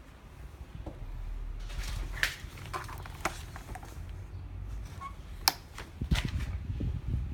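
Plastic clicks of a wall-mounted door-entry keypad: its flip-up cover and several button presses, a brief beep about five seconds in, then a sharper, louder click, with low rumble from handling the phone.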